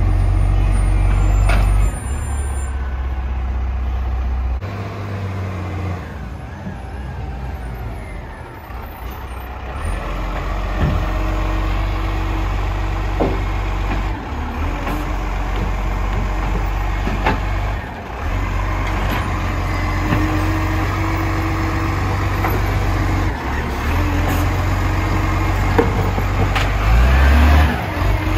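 Garbage truck running, its engine note stepping up and down several times, with a few sharp knocks along the way.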